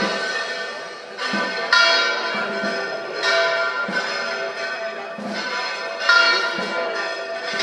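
Church bells ringing in a festive peal: a strike every second or two, each stroke ringing on into the next so that the tones overlap.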